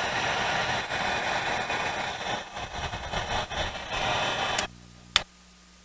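Heat gun blowing steadily while shrinking a heat-shrink wire connector, then switched off, cutting out suddenly near the end, followed by one sharp click.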